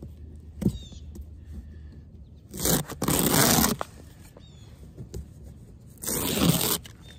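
Gorilla tape being pulled off a patch on a camper roof: a short sharp snap about a second in, then two ripping pulls of about a second each, a few seconds apart.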